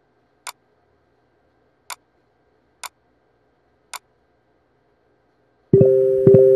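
Four sharp, light ticks, unevenly spaced about a second apart, against silence. Piano music then comes in near the end, a chord struck again and again in a steady pulse.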